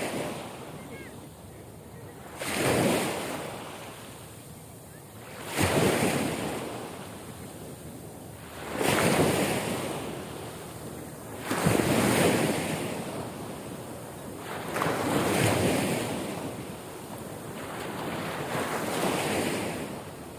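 Ocean waves breaking, six surges about every three seconds, each rising sharply and then fading away.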